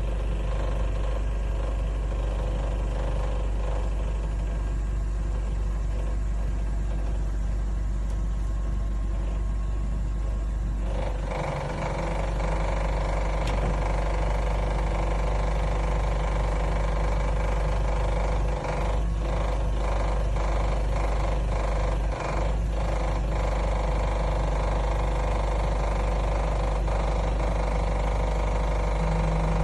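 Forklift engine running steadily at idle. About eleven seconds in, the running gets louder and fuller and holds there.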